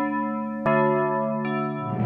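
Intro music of sustained keyboard chords in an electric-piano tone. A new chord is struck about two-thirds of a second in, and a softer higher note comes near the end.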